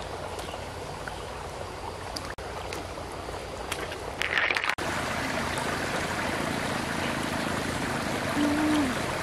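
Shallow stream water running over rocks, a steady rushing babble, with a brief louder splashy burst about four seconds in; the water gets a little louder after a quick break in the sound about five seconds in.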